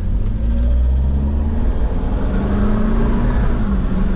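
An SUV's engine and road rumble heard from inside the cabin while driving. The engine note rises a little past the middle, then eases off.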